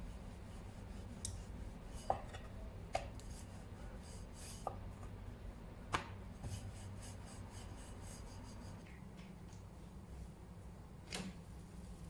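Wooden rolling pin rolling out a sheet of dough on a wooden board: a soft rubbing with a few light, sharp knocks spread through it.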